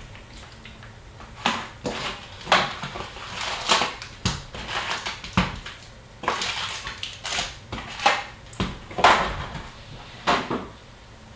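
Hockey card box and packs being opened by hand: irregular crinkling and tearing of wrappers and cardboard, about a dozen sharp rustles.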